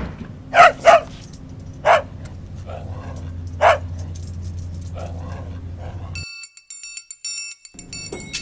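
Four loud, short, dog-like barks in the first four seconds, two close together and then two more spaced out, with fainter yelps between them, over a low steady hum. About six seconds in, a bright electronic beeping tune starts.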